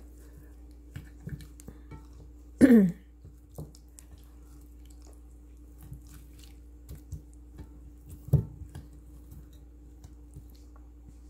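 Raw chicken thighs being flipped over by hand in a ceramic dish: soft wet squishes and small clicks over a faint steady hum. A short loud squeak falling quickly in pitch comes about two and a half seconds in, and a single sharp knock about eight seconds in.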